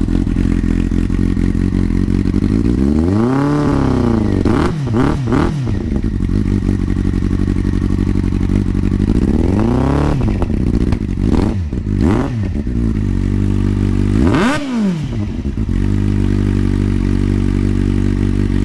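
Kawasaki Z750's inline-four idling through a Delkevic carbon slip-on exhaust, revved in short throttle blips several times, each rising in pitch and falling back to a steady idle.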